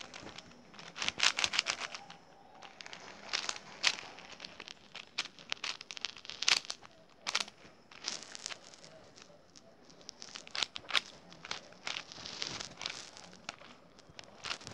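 Plastic Rubik's cube layers being twisted, an irregular run of sharp clicks and clacks with quick flurries of turns, as the scrambled cube is being solved.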